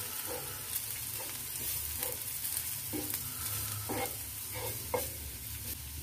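Chopped onion, garlic and green chilli sizzling in butter on a flat tawa while a spatula stirs spice powder through them, with short irregular scraping strokes against the pan.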